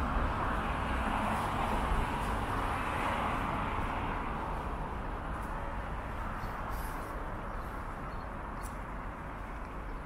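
City street traffic: the noise of a vehicle passing on the nearby road, loudest at first and slowly fading, over a steady low city rumble.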